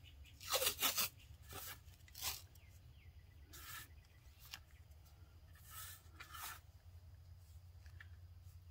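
Athletic tape being pulled off its roll and handled over a cardboard cover: several short, faint ripping and rustling sounds, the loudest about half a second to a second in.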